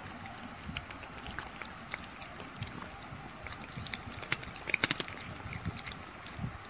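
Two kittens licking and lapping ice cream from a stick: small, irregular wet clicks over a faint hiss, with a louder flurry about four to five seconds in.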